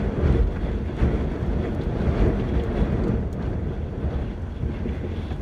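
Steady low rumbling wind noise buffeting the microphone, mixed with traffic noise.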